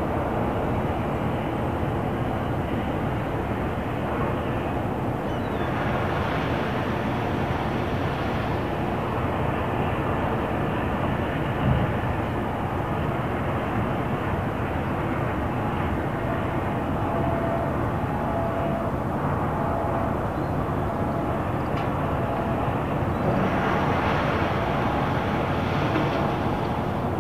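Harbour ambience: a steady low rumble of distant road traffic with a constant hum, swelling twice into a brighter hiss.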